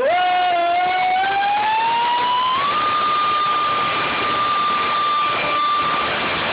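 The Stryker's motor-driven fan whining as it spools up: the pitch rises smoothly for about three seconds, then holds at a steady high whine at full speed.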